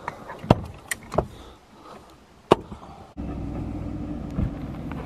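A few sharp knocks and clunks in the first three seconds. From about three seconds in, the Ford F-150 pickup's engine runs steadily while the truck sits stuck in the sand.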